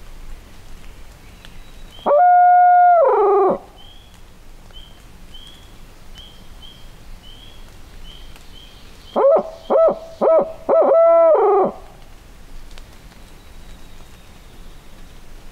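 Owl-hoot locator call given by a turkey hunter in imitation of a barred owl, meant to make a roosted wild turkey gobbler shock-gobble. One long hoot falls off at its end, then about six seconds later comes a quick run of short hoots ending in a longer falling hoot.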